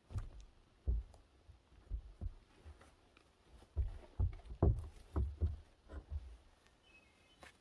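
Irregular dull thumps and knocks with light rustling: fiberglass insulation batts being laid and pressed between wooden deck joists, with boots stepping on the deck frame.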